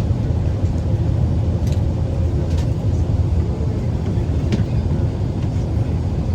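Steady low rumble of an Airbus A380's engines and airflow heard inside the passenger cabin, with a few faint clicks.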